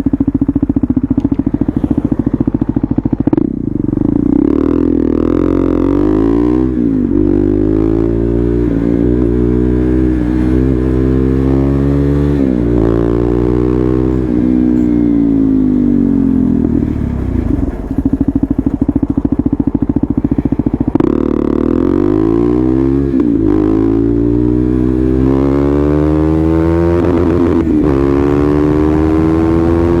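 KTM Duke 390's single-cylinder engine running, its revs rising and falling several times, with short drops in pitch between the climbs.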